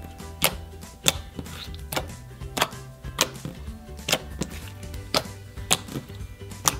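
Clear metallic slime being squeezed, poked and folded by hand, giving crackly sharp pops and clicks about one or two a second, over quiet background music.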